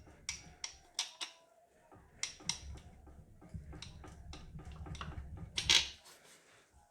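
Irregular light metal clicks and clinks, with a louder clank near the end, as a main bearing cap on a Datsun L18 engine is worked loose by rocking its bolts.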